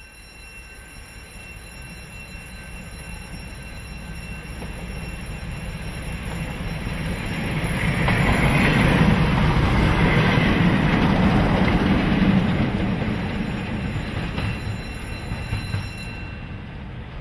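A pair of heritage diesel locomotives running light engine, coupled together: a Class 52 Western with twin Maybach diesels and a Class 47 with a Sulzer diesel. The engine and wheel noise builds as they approach, is loudest as they pass close by at about eight to twelve seconds, then fades as they move away.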